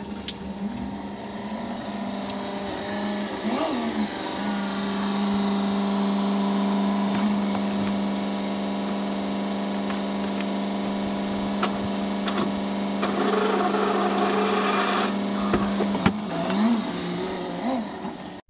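A small electric motor runs with a steady hum. It starts and stops in short runs for the first few seconds, then runs continuously from about four seconds in until near the end, when it winds down.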